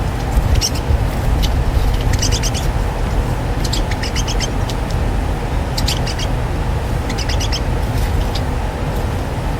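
Small birds chirping in short clusters of quick high notes, one cluster every second or two, over a steady low rumble.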